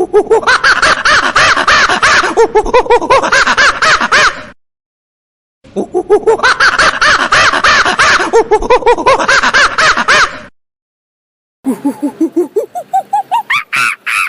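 Monkey calling in fast pulsed chattering runs, two near-identical runs of about four and a half seconds with a short gap between, then a run of calls that climbs steadily in pitch near the end.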